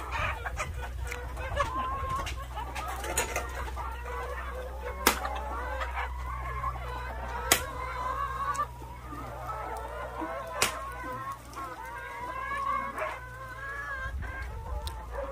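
A flock of chickens clucking busily as they feed on split coconuts, with three sharp knocks: about five seconds in, at seven and a half seconds, and at ten and a half.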